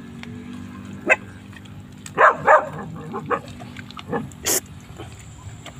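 Dog barking: two loud barks a little past two seconds in, then several shorter, softer barks, over a steady low hum.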